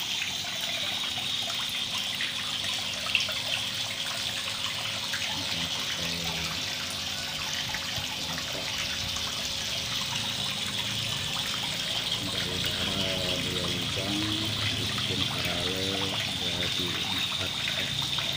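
Water splashing and trickling steadily into a small fish pond, falling from a filter's outlet pipe and stirred by aeration bubbles.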